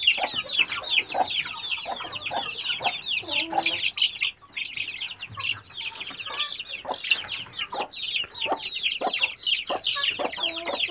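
A brood of chicks peeping non-stop, many short, high, falling peeps a second, with a hen's lower clucks breaking in among them now and then.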